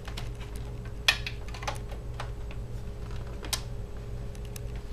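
Irregular light clicks and taps from a hand working at a laptop keyboard, a sharper click about a second in and again near three and a half seconds, over a steady low hum.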